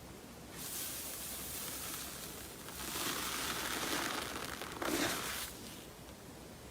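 Slime being squeezed and worked by hand, giving a crackling, crinkly sound that swells in a few stretches, loudest from about three to five seconds in.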